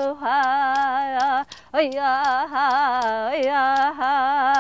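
A woman singing a traditional-style Native song, holding long notes with a wide vibrato and taking a short breath about one and a half seconds in. Faint light ticks keep a steady beat of about three a second underneath.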